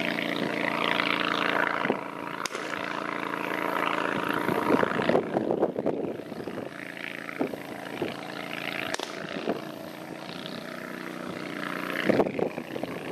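Go-Devil long-tail mud motor with twin exhaust running at speed, a steady droning engine note. The note fades as the boat heads off, then comes back up near the end as it turns broadside.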